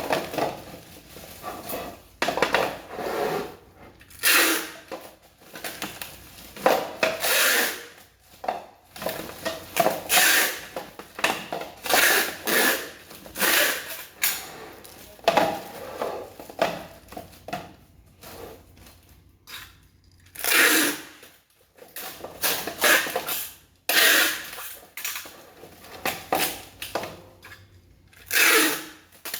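Irregular rustling, rubbing and clattering of packaging and small parts being handled by hand, in uneven bursts with short pauses.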